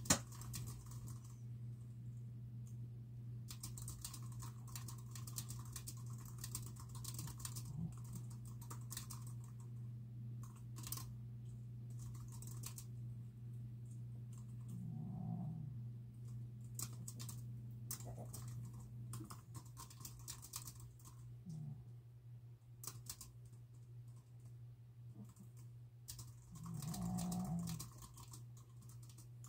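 Typing on a computer keyboard: irregular bursts of key clicks over a steady low hum. Three brief low voice-like sounds come in the middle and near the end, the last one the loudest.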